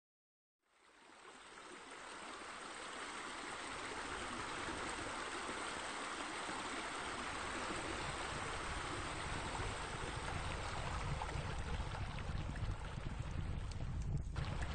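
Steady rush of running water that fades in after a moment of silence, like water spilling from a pool's sheer descents.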